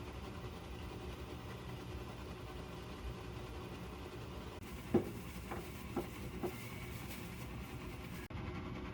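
Steady low hum, with four short light knocks a little past the middle.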